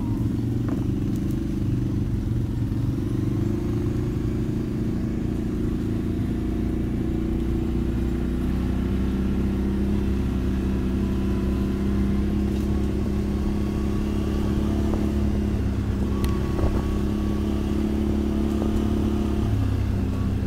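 ATV engine running steadily at low trail speed, heard from on board the quad, with a few brief knocks from the rough track. The engine note shifts slightly near the end.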